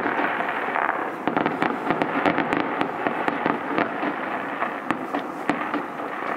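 Fireworks going off in rapid succession: a dense crackle of many sharp pops and bangs over a continuous rushing noise.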